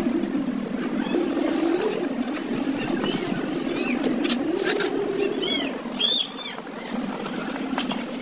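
An engine running steadily, its pitch drifting slowly up and down, with a few short high chirps in the middle.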